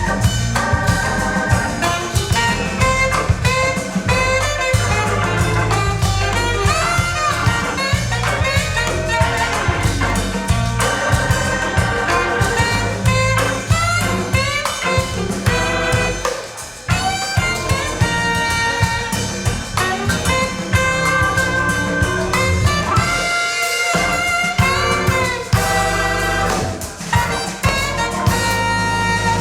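Recorded jazz with saxophone and brass over bass and drums, played back over a hi-fi loudspeaker system, with a brief drop in level twice.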